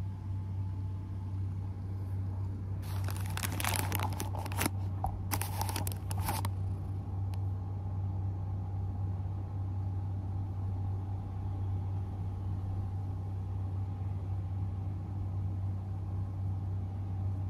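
Steady low hum with crackling, rustling handling noise on the phone's microphone from about three to six seconds in, as the cat's fur brushes against it.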